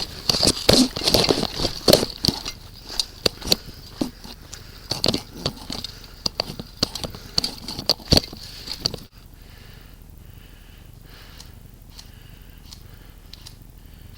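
Footsteps moving quickly over dry leaves and brush, an irregular run of crunches and knocks. About nine seconds in it cuts off abruptly, leaving a much quieter background with only faint occasional clicks.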